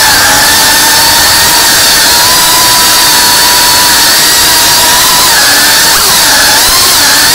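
A small FPV quadcopter's electric motors and propellers whining steadily, with quick dips and rises in pitch near the end as the throttle changes.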